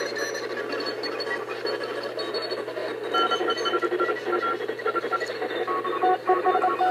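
Shortwave receiver tuned to the 21 MHz band, giving out hiss with several overlapping beeping tones keyed on and off like scrambled Morse code. Choppy higher-pitched beeps come in about three seconds in, and lower-pitched beeps join near the end.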